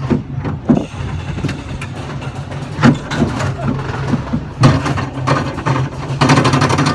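Roller coaster train rolling along its track: a steady low rumble with irregular knocks and clatter from the wheels, louder in the second half.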